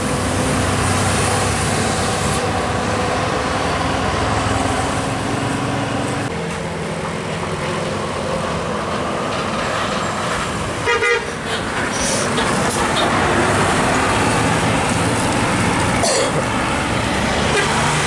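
Buses and cars driving past on a hill road, engines running, with a short horn blast about eleven seconds in.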